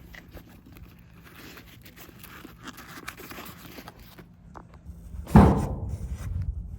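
Fabric tool bag being handled, with faint rustling, then one heavy thump a little past five seconds in, followed by low rumbling handling noise.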